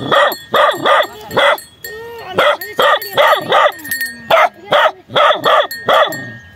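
A dog barking repeatedly, about two barks a second in quick runs with short pauses between them.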